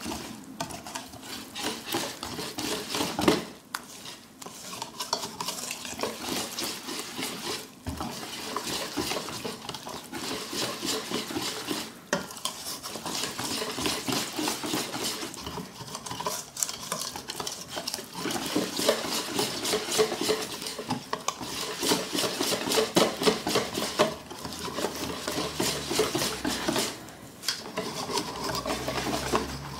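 Wire whisk beating thick oat pancake batter in a stainless steel bowl: rapid, continuous clicking and scraping of the wires against the metal, with a few brief pauses.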